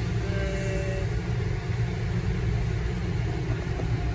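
Steady low rumble of a car idling in neutral, heard from inside the cabin.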